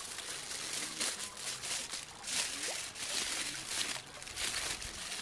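Aluminium foil crinkling and rustling as hands fold and press it into a packet around tomato slices, in a run of uneven crackles.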